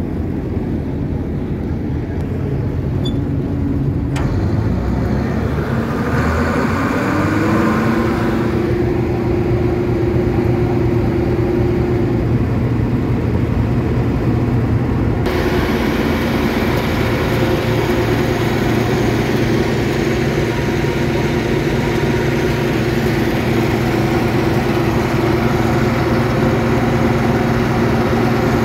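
Bizon combine harvester's diesel engine running with its threshing mechanism turning. The engine is speeded up to high revs a few seconds in and then held there, to blow out the debris and chewed material that mice left inside the machine.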